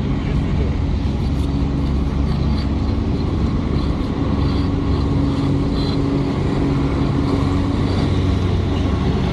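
A steady, even engine drone at a constant pitch, like a motor vehicle's engine running.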